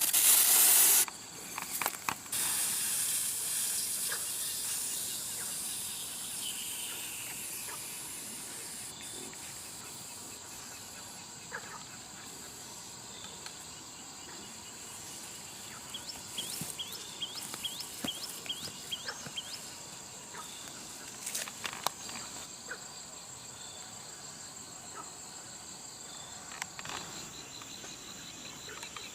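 A hiss that fades away over the first ten seconds or so, over a steady high insect drone. Scattered clicks are heard, and a short run of quick chirps comes just past the middle.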